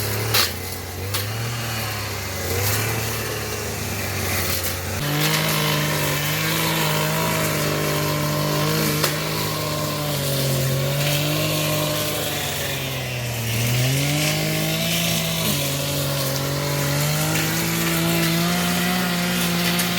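A small power-tool engine running, at part throttle at first, then revved high from about five seconds in, its pitch sagging and recovering several times as it works under load.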